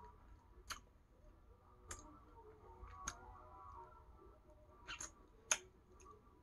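Faint, irregular wet clicks and smacks of a mouth sucking on a lemon wedge, about six in all, the loudest one late on.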